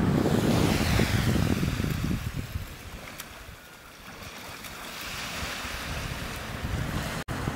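Wind buffeting the microphone over surf washing on a shore, loudest in the first couple of seconds, easing off in the middle and building again. There is a brief dropout near the end.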